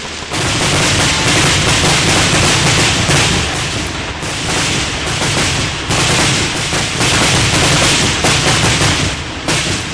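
Fireworks grand finale: a rapid, near-continuous barrage of overlapping bangs and crackling bursts, loud throughout with brief lulls.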